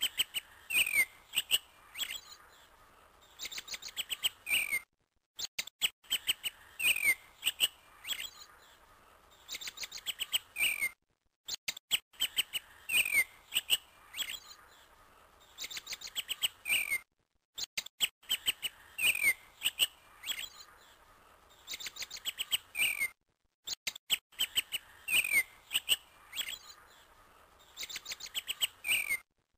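Recorded birdsong played on a loop: a run of quick, falling chirps repeats about every six seconds, with a brief dead silence between repeats.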